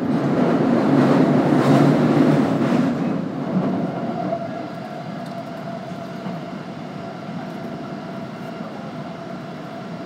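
Osaka Metro Midosuji Line train running, heard from inside the passenger car. A rumble is louder for the first three seconds or so, then eases to a steadier, quieter running noise with a faint steady hum.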